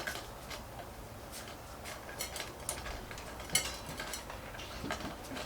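Small metal parts clicking and clinking by hand as a trim router's edge-guide bracket is fitted and fastened with a wing nut. Irregular light taps, the sharpest about three and a half seconds in.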